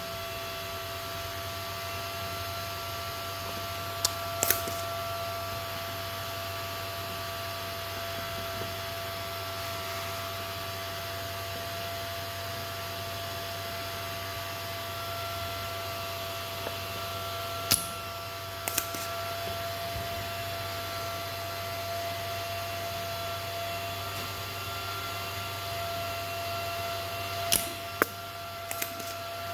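Steady electrical hum and whine with several fixed tones, broken by a few short sharp clicks: a pair about 4 s in, two more near the middle, and three near the end.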